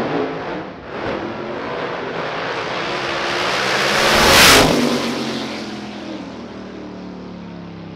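Two drag race cars launching off the starting line together and running at full throttle down the strip. The engine noise builds to its loudest about four and a half seconds in, then fades with a falling pitch as the cars pull away.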